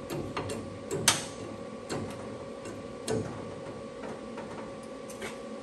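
Scattered light metal clicks and ticks, with one sharper click about a second in, as a porta-power hydraulic ram pushes a sheet-metal inner fender panel into place. A steady hum lies underneath.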